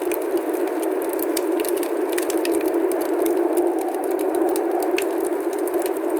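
Steady rushing noise of a snowstorm, with scattered faint crackling ticks over it.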